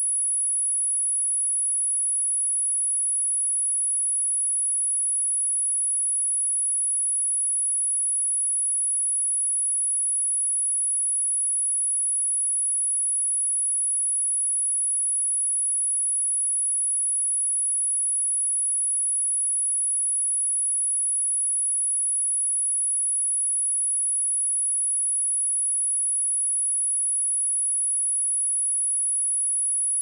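A steady, unbroken high-pitched sine-wave test tone at 10216 Hz, a pure single pitch without change in pitch or loudness, of the kind played through a speaker to test it or to shake dust and water out of it.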